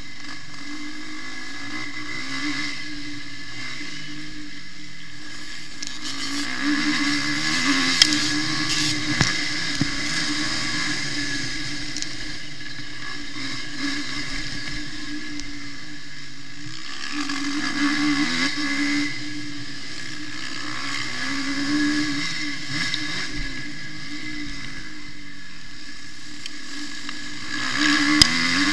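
Suzuki RM-Z250 single-cylinder four-stroke motocross engine heard close up from on the bike, its revs rising and falling through corners and straights, with louder pulls about 7, 18 and 28 seconds in. A steady rush of air noise runs under it, and a couple of sharp clicks stand out, about 8 seconds in and near the end.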